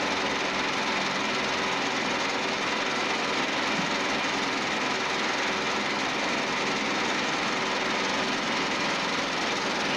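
Small gasoline engine of a portable concrete mixer running steadily at a constant speed.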